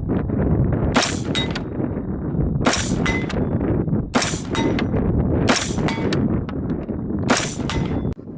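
AR-15 rifle firing five single shots about a second and a half apart, each followed a fraction of a second later by the ring of the steel target plate being hit at 100 yards.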